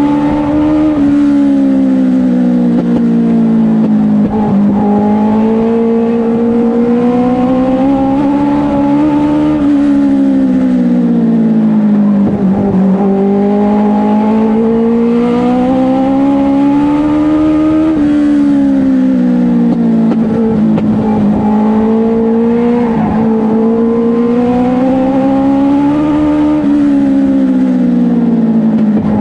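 Race car engine heard from inside the cockpit at racing speed. It climbs in pitch as the car accelerates and eases off again, over and over, about every eight to nine seconds.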